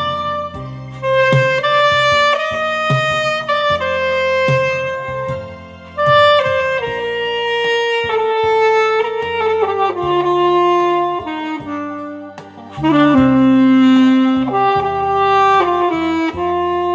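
Alto saxophone playing a slow, legato melody of long held notes over a backing accompaniment with a steady bass line.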